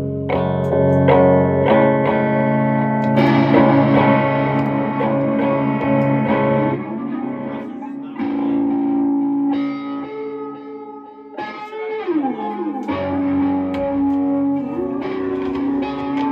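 Electric guitar played through effects pedals, ringing sustained notes and chords that change every second or two, with one note sliding down in pitch about twelve seconds in.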